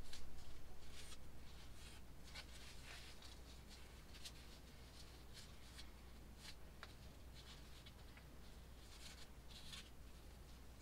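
Cloth wiping mineral oil onto a small oak block: faint, irregular scratchy rubbing strokes, a little louder in the first second or two.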